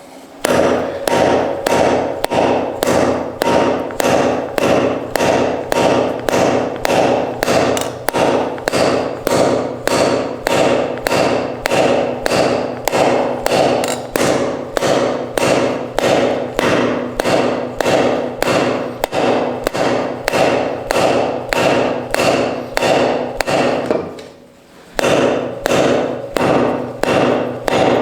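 Hammer blows ringing on the steel of a newly built wrought-iron anvil, about two strikes a second in a steady rhythm, with a short pause about 24 seconds in before the strikes resume.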